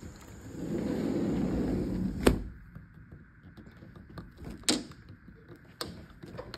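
A sliding door rolling along its track, then shutting with a sharp knock about two seconds in. A few lighter clicks and knocks follow.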